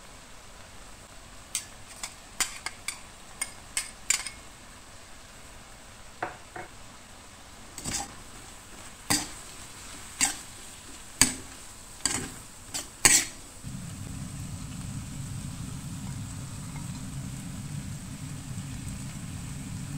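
A utensil knocking and scraping against a metal wok as squid adobo is stirred, a string of irregular sharp clacks. About fourteen seconds in the knocks stop and a steady low rumble takes over.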